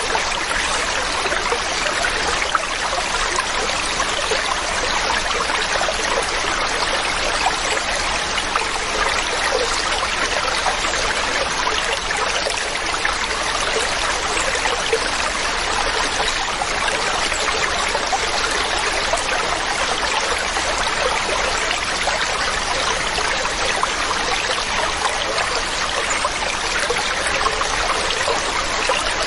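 Waterfall: a steady rush of falling, splashing water, even and unbroken throughout.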